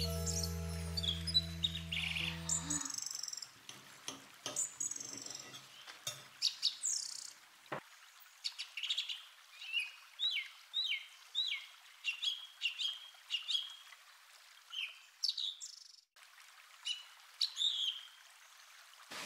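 A held music chord stops about three seconds in. After it, small songbirds chirp and call, with a run of short sliding notes about two a second in the middle.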